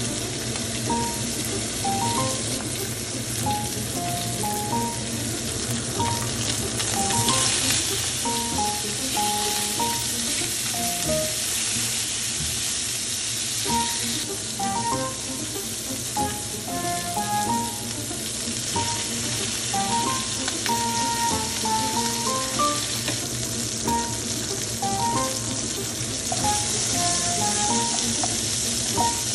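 Pork belly strips sizzling as they fry in their own fat in a hot frying pan, the sizzle swelling louder about a quarter of the way in and again near the end, over light background music.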